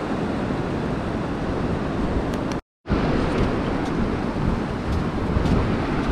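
Wind buffeting the microphone over the steady wash of breaking surf, with the sound cutting out completely for a moment a little under three seconds in.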